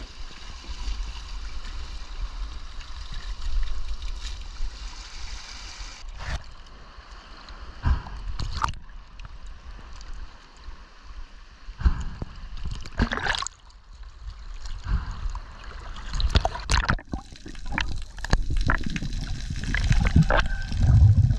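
Water sloshing and trickling around a spearfisherman wading in off rocks and swimming out on a float, broken by scattered sharper splashes and knocks. Near the end the camera goes underwater and the sound becomes a low rumble.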